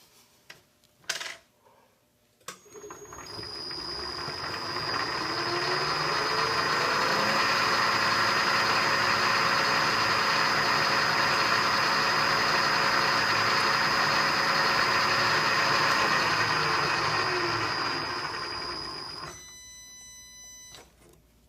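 A milling machine's spindle motor, with a steady high whine, starts and runs up to speed over a few seconds. It runs steadily at about 832 rpm for some nine seconds, then winds down and stops.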